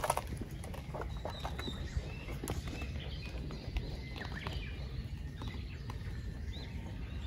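Birds chirping faintly in short scattered calls, with a few footsteps on concrete in the first couple of seconds.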